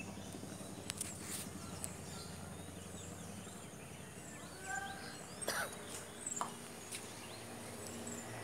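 Low, steady drone of a distant formation of Bell 212 and Bell 412 helicopters, with birds chirping and a few sharp clicks over it.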